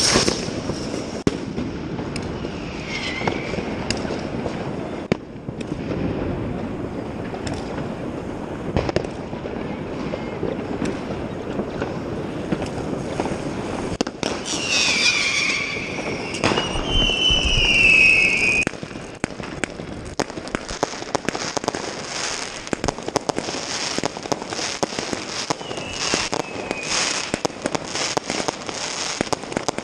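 New Year's Eve fireworks: a continuous run of bangs and crackling firecrackers. Whistling fireworks screech loudest from about 14 to 18 seconds in, with fainter falling whistles near the start and near the end.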